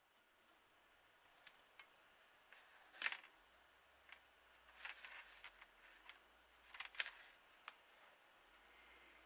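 Faint room tone with scattered short clicks and light taps, loudest about three seconds in and twice near seven seconds.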